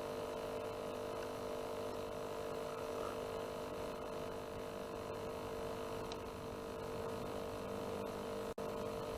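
A steady, even electrical hum, cutting out for an instant near the end.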